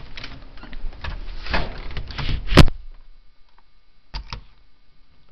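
Footsteps crunching in snow, ending in a single loud thump about two and a half seconds in, after which it goes much quieter; two quick clicks follow a little later.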